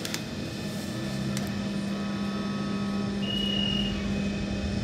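Inside a BN coast tram: the electric tram's traction equipment sets in with a steady low hum about a second in and holds it, with a couple of faint clicks and a short high beep a little past halfway.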